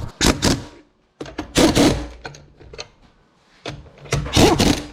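Impact wrench running wheel lug nuts on in three short bursts, each a fast hammering rattle.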